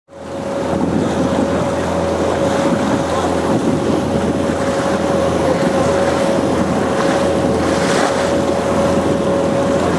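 Motorboat running on open sea: a steady engine hum with a constant tone above it, over water noise and wind buffeting the microphone. It fades in at the start and then holds steady.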